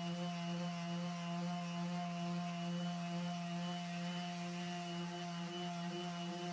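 Handheld electric power tool running steadily at a constant speed, a steady motor hum with evenly spaced overtones.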